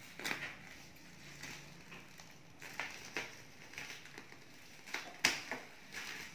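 Bubble wrap and plastic packaging crinkling and crackling under hands, with several short, sharper crackles, the loudest a little past five seconds in.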